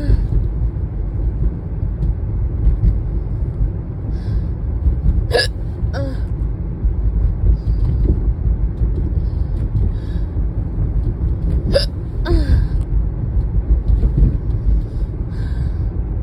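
A person hiccuping twice, about six seconds apart, each a sharp short gulp, over the steady low rumble of a car being driven.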